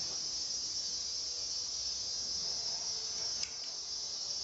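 Steady high-pitched insect chorus. A single short click about three and a half seconds in.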